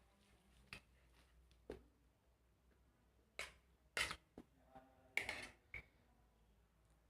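Quiet eating sounds: scattered soft clicks and crunchy crackles of chewing and utensils, with a few louder ones clustered in the middle.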